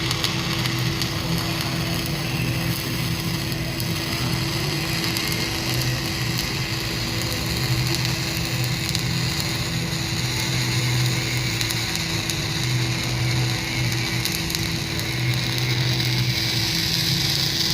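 Electric arc welding: a steady crackling, sizzling hiss over a low electrical hum, running for one long continuous bead and cutting off sharply at the end.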